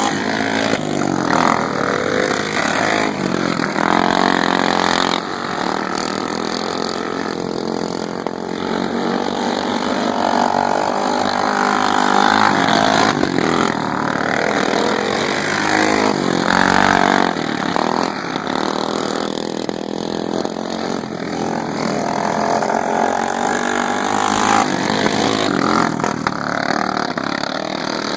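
Racing lawn mower engines running hard around a track. The engine sound swells and shifts in pitch every few seconds without a break.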